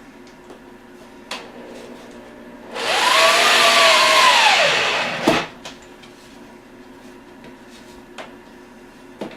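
Power drill running for about two and a half seconds, its motor speeding up and then slowing down as it drives a screw for the door's strike plate. It ends with a sharp click, and a few light clicks come before and after.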